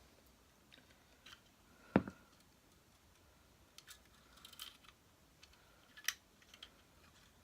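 Small scattered clicks and taps from handling a vacuum cleaner motor as its carbon brushes are pulled from their holders, with one sharper knock about two seconds in.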